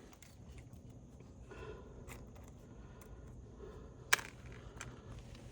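Quiet handling of tools and fasteners on an asphalt shingle roof: faint rustling and scraping, a few light clicks, and one sharp tap about four seconds in.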